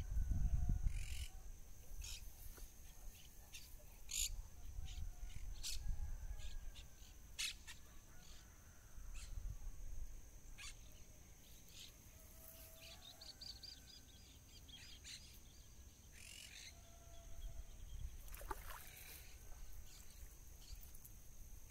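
Scattered short bird chirps and calls over a steady thin high tone, with a low rumble of wind or handling on the microphone that is strongest at the start.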